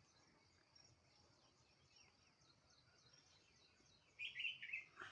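Wild birds chirping faintly in the background, with one bird giving a louder run of a few quick, slurred notes about four seconds in.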